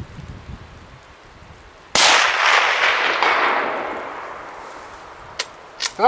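A single shot from a Remington 700 rifle in .308 Winchester about two seconds in, its report rolling away in a long echo that fades over about three seconds. Two short clicks follow near the end.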